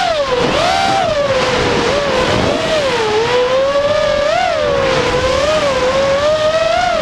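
Racing quadcopter's brushless motors and propellers (Cobra 2206 2100KV) whining in flight, the pitch rising and falling again and again as the throttle changes, over a rush of wind noise.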